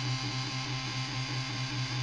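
Muscarin handmade analog drone/noise synthesizer playing a dense, buzzing drone over a low, evenly pulsing rhythm.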